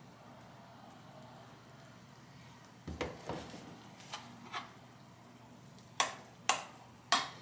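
Liquid poured quietly from a kettle into a ceramic rice bowl, then a soft knock about three seconds in as things are moved on the tray. Near the end a metal spoon clinks sharply against the ceramic bowl three times while stirring.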